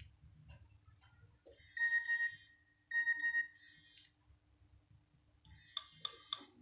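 Nokia N73's loudspeaker playing a ringtone: two short rings about a second apart, then three quick beeps near the end.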